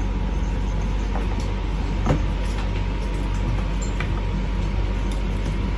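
Steady low background hum, with a few faint clicks and scrapes of a cardboard box being opened.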